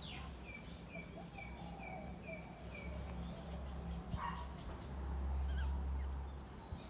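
Birds calling outdoors: one bird repeats a short note six times at about two a second, with other scattered chirps, over a low rumble that grows louder near the end.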